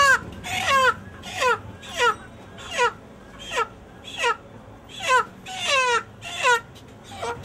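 White broiler chicken, pinned down for slaughter, giving distress squawks over and over, about three every two seconds, each call falling in pitch.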